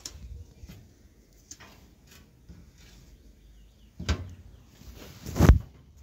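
Two knocks about a second and a half apart, the second louder, among faint small clicks and handling noises.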